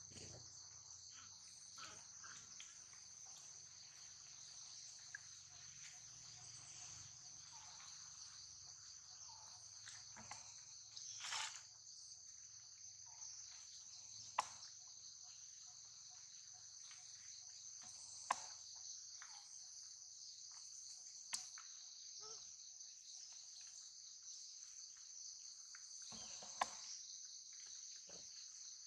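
Steady high-pitched insect chorus, faint, with a few sharp ticks scattered through and a brief louder noise about eleven seconds in.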